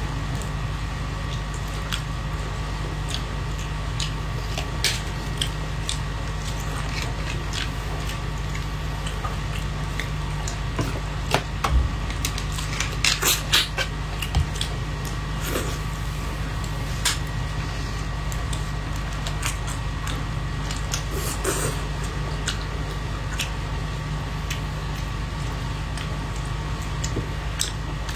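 Gloved hands peeling shell-on shrimp from a wet chili marinade and chewing them: scattered crackles of shell and wet squelches, busiest about halfway through. A steady low hum runs underneath.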